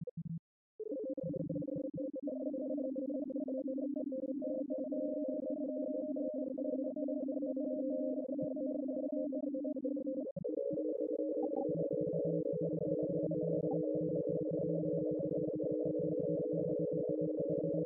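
Data sonification of a protein's hydrogen bonds through a folding transition: a held chord of synthesized tones with rapid fine crackle, which shifts to a new set of pitches about ten seconds in, with a low tone joining soon after.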